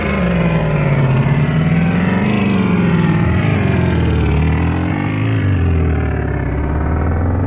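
Dense, loud layered experimental sound collage: a thick wash of noise over a low steady drone, with a pitch that wavers slowly up and down, engine-like in character.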